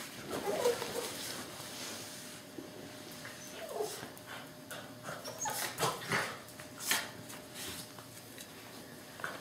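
Two small dogs play-fighting on a tile floor: short whimpering vocalisations mixed with scuffling and sharp clicks, irregular throughout.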